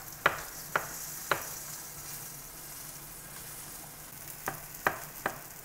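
Knife chopping shiitake mushrooms on a wooden cutting board: three sharp knocks in the first second and a half and three more near the end. Underneath, the steady sizzle of a flour-coated beef shank searing in hot oil in a pan.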